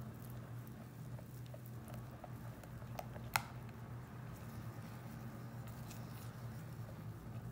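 Silicone spatula stirring whipped egg whites into a runny yogurt batter in a glass bowl: soft wet squishing with faint light ticks, and one sharper click about three seconds in.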